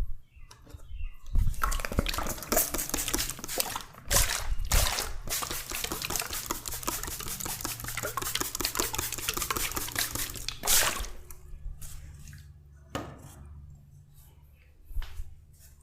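Oiled hands rubbing and working through hair and scalp in an oil head massage: a dense, wet crackling rub that runs for about nine seconds and then stops. A couple of short knocks follow near the end.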